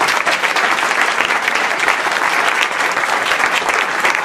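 An audience applauding steadily, many hands clapping, welcoming a speaker to the front.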